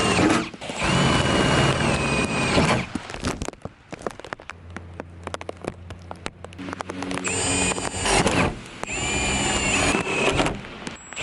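Power drill run in four short bursts, each spinning up to a steady whine, while a larger bit enlarges the bolt holes for a rear wing. There is a pause with small clicks in the middle.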